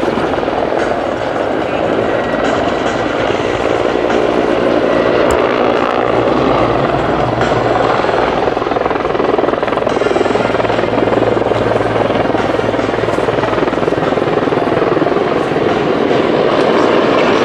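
Mil Mi-24 Hind attack helicopter in flight, its main rotor and twin turboshaft engines running loud and steady. A low hum comes up in the middle of the pass and fades again.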